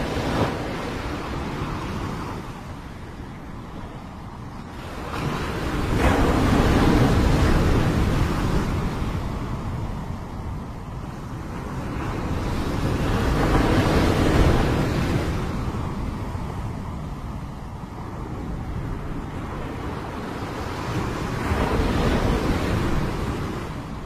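Small waves breaking and washing up a pebble beach, the surf rising and falling in slow surges about every seven seconds, with wind rumbling on the microphone underneath.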